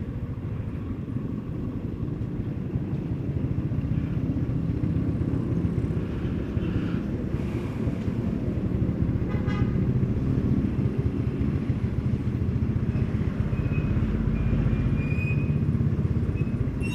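Motorcycle engine running steadily at low revs while the bike rolls slowly, a low rumble throughout.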